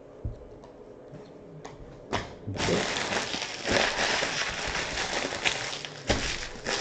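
A trading-card pack wrapper being torn open and crinkled, with a few light clicks first and then a dense crackling run of about three seconds starting a couple of seconds in.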